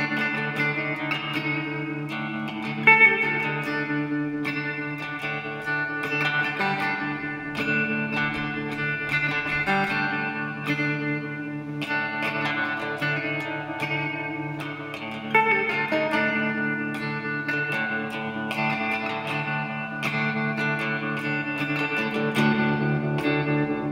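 Background music: plucked guitar, partly electric with effects, playing sustained chords throughout, with stronger plucked attacks about three seconds in and again about fifteen seconds in.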